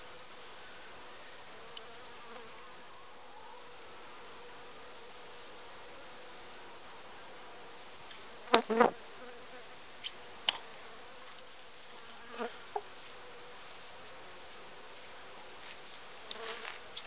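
Honeybee colony humming steadily in an open hive. Sharp wooden knocks from the slats lying across the frame top bars being handled: a loud double knock about eight and a half seconds in, then a few lighter clicks over the next four seconds.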